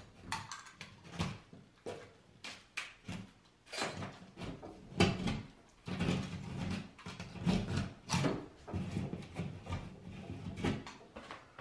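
Utility knife blade scraping and cutting away torn drywall face paper and crumbling gypsum around screw holes, in irregular short scratchy strokes; near the end the loosened bits are picked out by hand.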